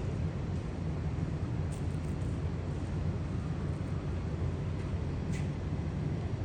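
Steady low rumble of city street background noise, with a few faint ticks about two seconds in and again near the end.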